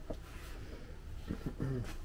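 Faint, indistinct speech over a low steady background rumble of a small room, with a short click just after the start.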